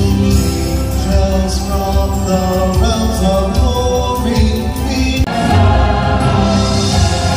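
Choir singing Christmas music with instrumental accompaniment. About five seconds in it breaks off abruptly into a different, fuller passage.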